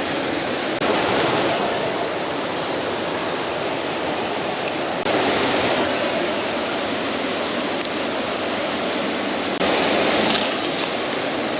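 Waterfall's falling water rushing steadily, with brief sudden jumps in loudness about a second in, about five seconds in and near the end.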